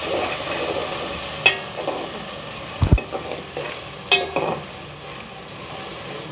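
Spoon stirring a frying onion-tomato masala with ginger-garlic paste in a pan: a steady sizzle with scrapes and a few knocks of the spoon against the pan, the loudest about three seconds in.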